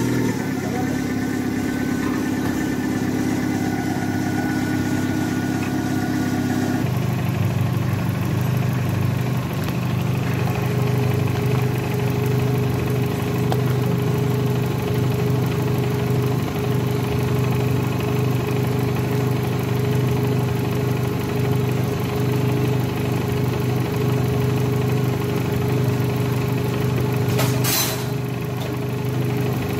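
Fiat Punto 1.2i four-cylinder petrol engine idling steadily, its hum changing in tone about seven seconds in. A brief burst of noise comes near the end.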